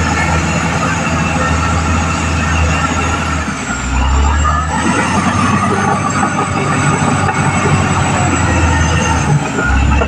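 Caterpillar D6R XL crawler bulldozer at work: its diesel engine runs with a steady low drone, and thin high-pitched squeals come from the steel tracks and undercarriage. The low drone shifts briefly about four seconds in.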